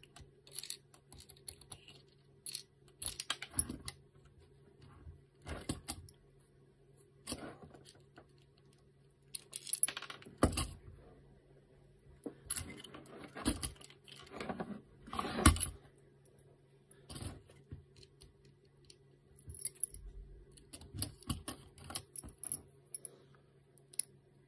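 Small steel screws and a screwdriver clicking and clinking against 3D-printed plastic parts and a servo during hand assembly, in scattered bursts of handling noise. The louder knocks come about ten and fifteen seconds in. A steady low hum runs underneath.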